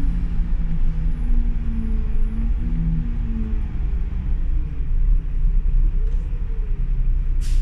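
City bus running, heard from on board: a steady low rumble with drivetrain tones that slide slowly down and up in pitch as the bus changes speed. A short sharp click-like sound comes near the end.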